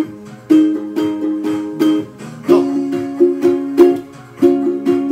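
Ukulele strummed in a steady down-up rhythm, the chord changing from G major to C major about halfway through.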